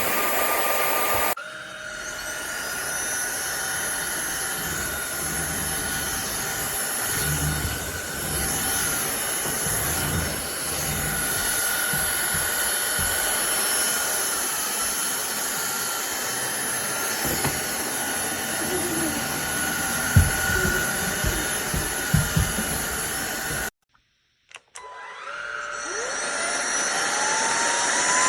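A cordless stick vacuum's motor runs with a steady high whine, and a few dull knocks come near the middle of the stretch. The sound cuts off abruptly about two-thirds through, then the motor spins up again with a rising whine near the end.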